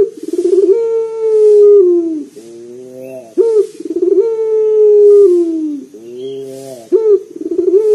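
Ringneck dove (Indonesian local 'puter') cooing loudly in a deep, bassy voice. Twice, a quick stuttering start runs into a long coo that slowly falls in pitch, with a softer coo between.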